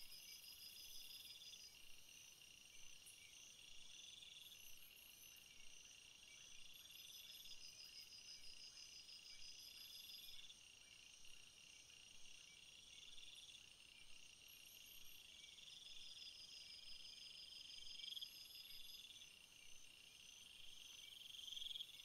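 Faint chorus of crickets chirping: a steady high trill, with a louder pulsed trill swelling and stopping every two to three seconds, and quicker high chirps over it.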